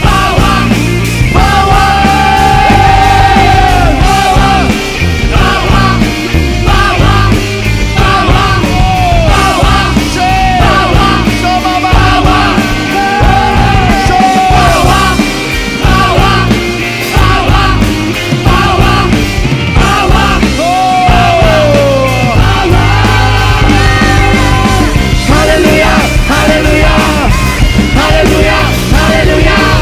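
Loud live rock-style worship music from a full band, with a heavy low end and steady drumming under a lead line of long held and sliding notes.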